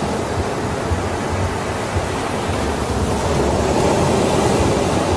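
Ocean surf, a steady rushing noise of waves.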